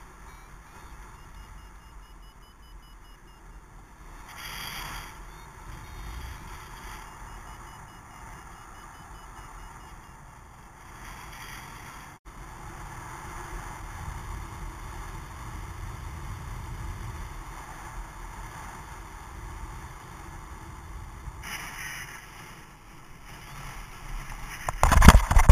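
Wind rushing steadily over a helmet-mounted camera's microphone in paraglider flight. Faint rapid beeping from a flight variometer comes in the first few seconds, and loud bumps and buffeting come near the end.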